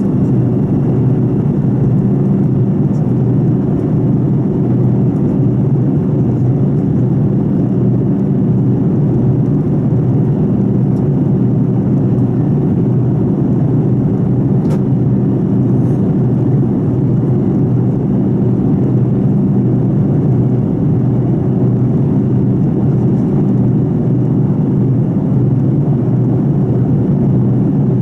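Fokker 70's rear-mounted Rolls-Royce Tay turbofan in flight, heard from inside the cabin as a loud, steady, unchanging drone: a deep hum with a faint thin whine above it.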